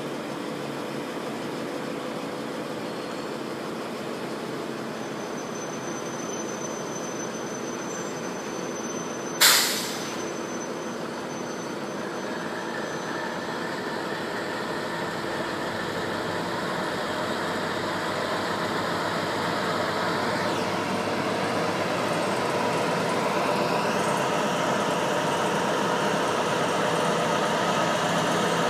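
British Rail Class 60 diesel locomotive's engine running with a steady drone that slowly grows louder as the locomotive draws near. A single brief, loud burst of noise breaks in about nine and a half seconds in.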